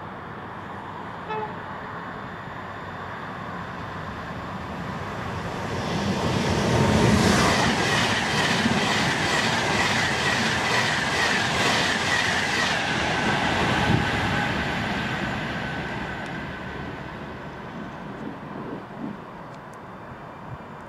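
Virgin Pendolino electric train passing through at speed. The noise builds over a few seconds, peaks with a fast, even clatter of wheels over the rails and a high whine that drops in pitch as the train goes by, then fades away.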